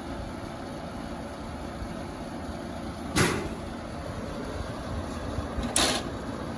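Small 5,000 BTU window air conditioner running steadily, its compressor and propeller fan giving a constant hum and whoosh. Two brief sharp bumps cut across it, about three seconds in and again near the end.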